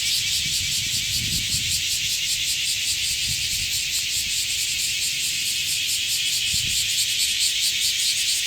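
Many cicadas singing together in a dense chorus: a loud, steady, hissing buzz with a fast, even pulse.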